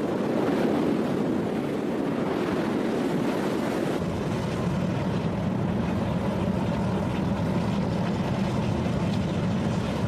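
Geyser erupting: a steady, deep rushing of water and steam, swelling in the first second and then holding level.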